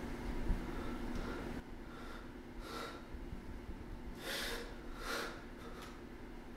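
A distressed man's ragged breathing: a string of sharp gasping breaths and sniffs, the strongest about four seconds in, over a steady low room hum.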